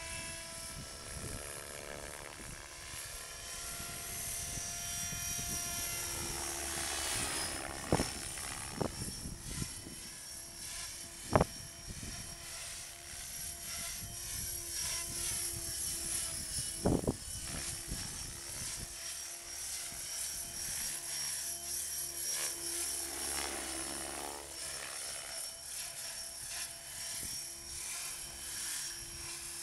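Mikado Logo 550 SX electric RC helicopter flying, its motor and rotor whine running throughout with the pitch shifting up and down as it manoeuvres. A few short, sharp pops cut in about 8, 11 and 17 seconds in.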